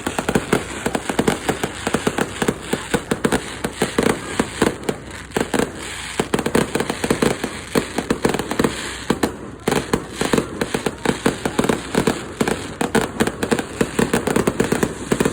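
Fireworks going off in a dense, rapid barrage of bangs and crackles, with a brief lull a little past halfway.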